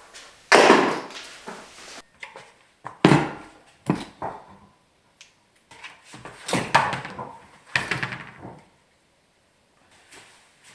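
A handful of separate clunks and clatters, about five of them with short pauses between, as bike parts and tools are handled and knocked together.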